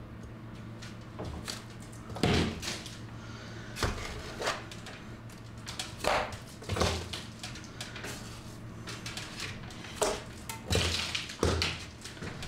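Metal scraper scraping and knocking at the loose lime render around a window reveal: a string of short, sharp scrapes and knocks at irregular intervals, one every second or two, some trailing briefly.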